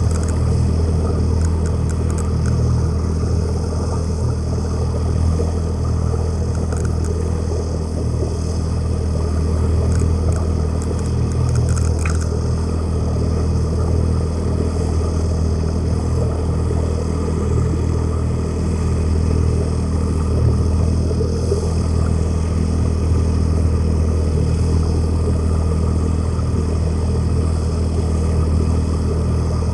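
A boat's motor heard underwater while it tows along: a steady low rumble with water rushing past the camera.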